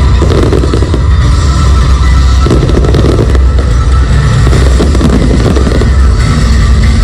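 Fireworks bursting and crackling over loud music from the show, the two mixed together without a break.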